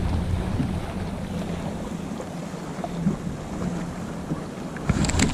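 Wind buffeting the microphone over water lapping against a boat, with a few faint clicks, and a louder burst of rumble and clicks near the end.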